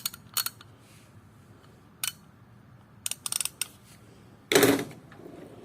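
Scattered metallic clicks and clinks of hand tools, sockets and a ratchet being handled, with a louder clatter about four and a half seconds in.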